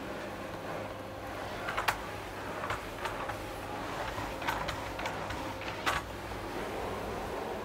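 Canister vacuum cleaner running with a steady whine and rushing air. A few sharp clicks sound over it, about two, three, four and a half and six seconds in.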